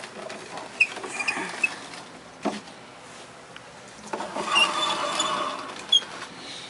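An old radio set being handled and turned around: a few sharp clicks and knocks, and a scraping, rubbing noise about four seconds in that lasts a second or so.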